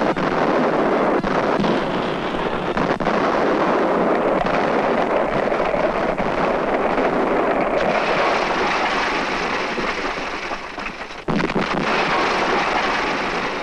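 Dense battle noise laid over wartime film: a continuous rumble of gunfire and explosions with scattered sharp cracks, dipping briefly about eleven seconds in and then resuming.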